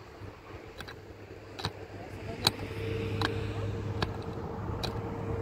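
Sharp knocks at an even pace, about one every 0.8 s, with a steady low hum like a running motor setting in about halfway through.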